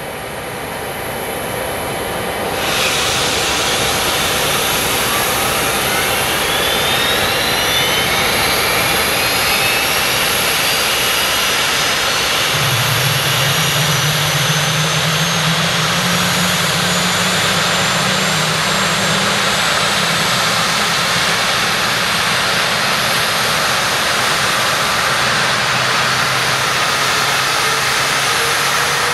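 General Electric CF34 turbofan engines of a Bombardier CRJ-900 running. The sound fades in, jumps louder about three seconds in, then gives a high whine that climbs steadily in pitch over roughly fifteen seconds as the engine spools up. A low hum joins about halfway through.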